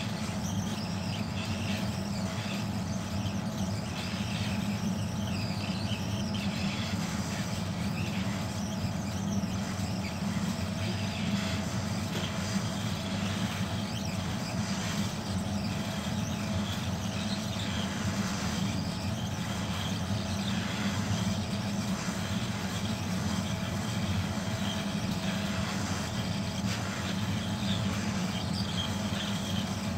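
Hot air rework station running steadily, blowing hot air onto a chip on a desktop motherboard: a constant low drone with a faint steady whine over it.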